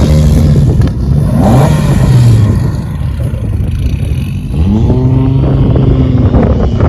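MG Metro 6R4's 3-litre V6 rally engine revving hard through gear changes, the revs climbing and dropping several times. It eases off and quietens about midway, then pulls hard again and holds high revs.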